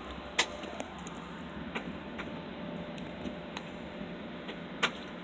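Steady low background hum with a few sharp clicks scattered through it, the loudest about half a second in and near the end.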